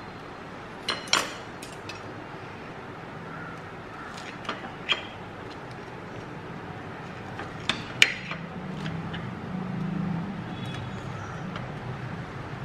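Cutlery clinking against a ceramic plate: sharp clinks in three pairs, the loudest about eight seconds in, over a steady low background hum.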